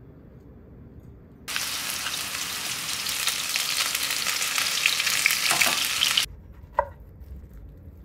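Meat patties sizzling and crackling in hot oil in a frying pan. The sizzle starts suddenly about a second and a half in and cuts off about six seconds in, followed by a single short tap.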